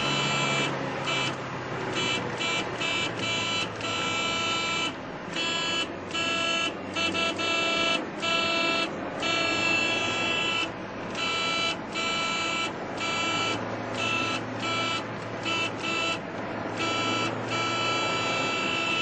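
Honda Civic's horn honked over and over in an irregular string of short taps and longer blasts, each a steady tone. It is heard from inside the car over engine and road noise.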